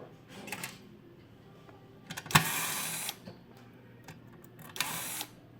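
Handling noises: a sharp click a little over two seconds in, followed by a brief rush of scraping noise, then a second shorter scrape near the end.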